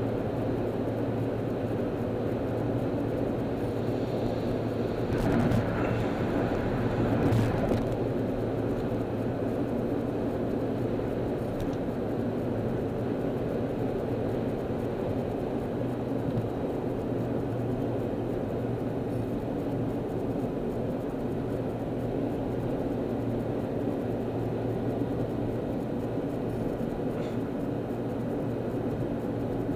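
Steady engine hum and road noise of a car cruising at freeway speed, heard from inside the cabin. Two brief louder swells come about five and seven seconds in.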